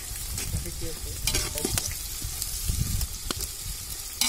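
Onions, green chillies and spring onions frying in groundnut oil in an aluminium pot while a perforated ladle stirs them. A few sharp taps are heard as eggs are cracked open with a knife over the pot, clustered about a second and a half in and again near the end.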